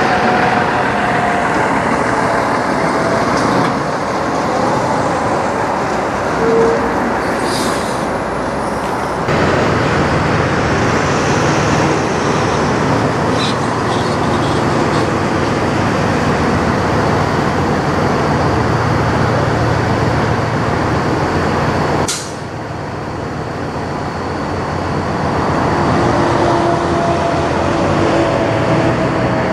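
Kenworth semi trucks' diesel engines running as the trucks pull away and drive past, their engine pitch sliding down and up, in three separate clips that change abruptly about nine and twenty-two seconds in. A brief hiss of air comes about eight seconds in, typical of truck air brakes.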